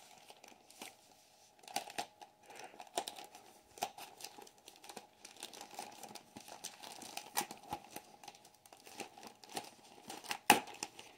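Plastic packaging bag crinkling as hands pull it open, in irregular crackles with the sharpest about ten and a half seconds in.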